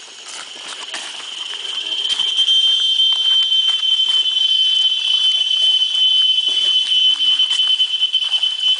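Cicada drone: one steady, high-pitched buzz that swells in over the first two seconds, then holds loud.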